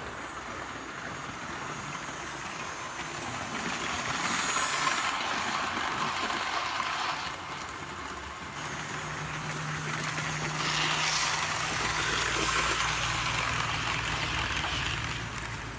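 Double-headed model railway locomotives running past on the track: a steady rumble of wheels and motors that grows louder twice as the train passes, with a low steady hum in the second half.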